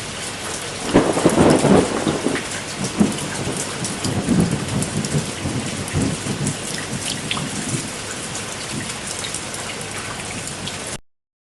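Steady rain falling, with many drops ticking close by. A louder low rumble swells about a second in and again around four seconds. The sound cuts off suddenly near the end.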